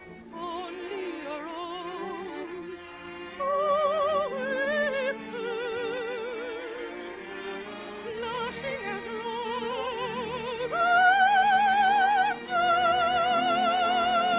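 An operatic soprano sings a slow melody with a wide vibrato over an orchestra, in a narrow-band old radio recording. Her line climbs to louder high notes twice, held longest near the end.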